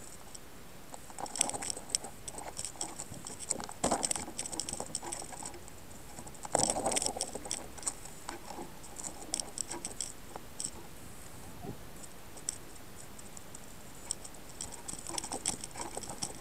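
Irregular clicks, ticks and short rattling clusters over a faint steady hiss: a high-altitude balloon payload's camera and fittings knocking and creaking. The loudest clusters come about a second and a half in, around four seconds, and around six and a half seconds in.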